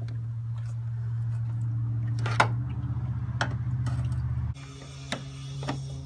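A screwdriver clicking sharply a few times against the plastic locking clips of a coolant hose on a plastic expansion tank as they are pried up. Over it runs a steady low mechanical hum that changes about halfway through and then drops away sharply.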